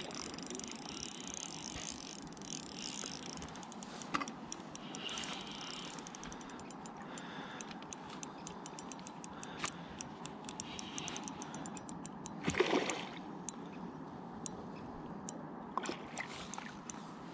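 Ultralight spinning reel clicking irregularly while a big hooked trout is played, over a steady rushing noise. A brief louder burst comes about twelve seconds in.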